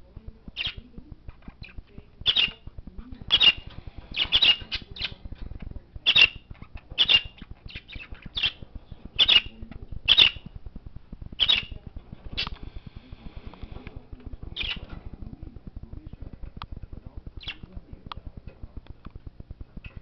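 Budgerigar giving short, sharp squawking chirps, about a dozen in quick irregular succession, then a few more spaced farther apart.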